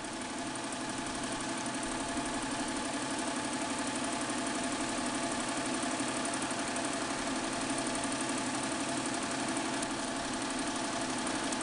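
Melco EMC 10/4T multi-head commercial embroidery machine running, its needle heads stitching with a fast, steady mechanical rhythm.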